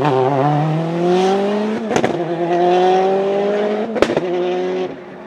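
Ford Focus WRC rally car's turbocharged four-cylinder engine accelerating hard, its note rising through two gear changes about two seconds apart, each marked by a sharp crack. The sound drops abruptly near the end.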